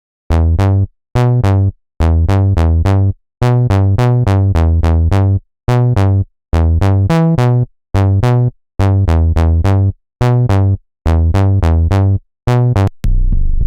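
SynthMaster One software synthesizer playing a sequenced riff of short, punchy bass-heavy synth notes in rhythmic phrases with brief gaps between them. Near the end a different preset with a noisier, washier tone takes over.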